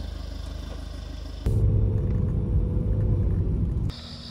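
A vehicle engine running at a steady low hum, then a sudden, much louder low rumble from about a second and a half in that lasts a couple of seconds and cuts off abruptly near the end.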